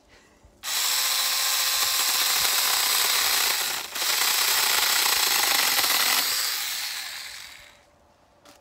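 Small handheld electric mini chainsaw cutting through a branch. The motor and chain start suddenly about half a second in and run steadily, with a brief dip near the middle, then wind down after the cut until they stop shortly before the end.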